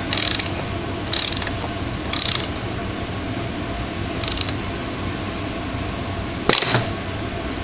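Ratchet wrench tightening a rear sprocket bolt: four short runs of ratchet clicking as the handle is swung back, then a single sharp clank about six and a half seconds in.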